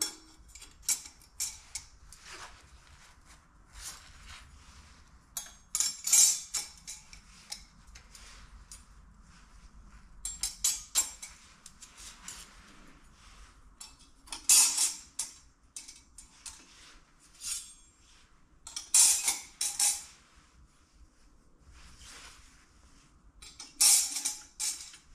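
Thin sheet-steel cylinder head gaskets for a Volvo TD 100 diesel clinking and rattling as they are handled and laid onto the engine block's deck, in short bursts every few seconds.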